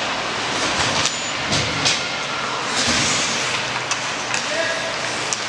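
Ice hockey play: skate blades scraping and carving the ice with a steady hiss, a brief louder scrape about three seconds in, and a few sharp clacks of sticks on the puck and ice.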